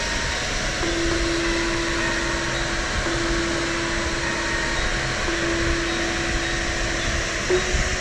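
Steady roar of a waterfall. Over it sits a held tone that shifts to a new pitch about every two seconds.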